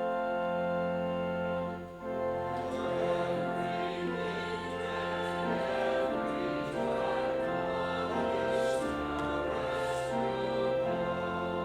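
Church offertory music: slow music of long held chords that change every second or two, with a short dip about two seconds in.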